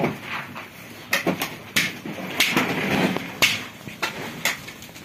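A crowd of Shami goats jostling in a pen: scattered sharp knocks and scuffs from hooves and bodies bumping against one another and the pen.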